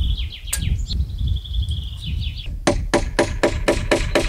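A hammer driving nails into a timber post: a quick, even run of strikes, about four a second, starting a little past halfway. The nails are set temporarily to hold up a new reinforcing timber.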